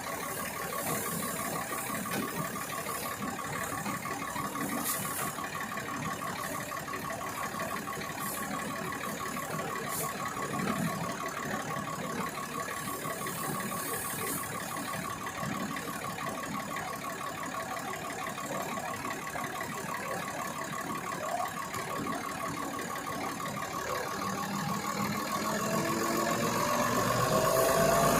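Engine-driven rice threshing machine running steadily with a constant whine. Near the end the engine speeds up, rising in pitch and growing louder.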